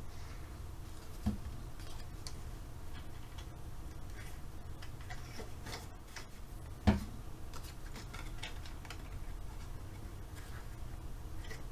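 Cardstock pieces being handled and pressed together: scattered faint ticks and rustles, with two short thumps, one about a second in and a louder one a little past halfway, over a steady low hum.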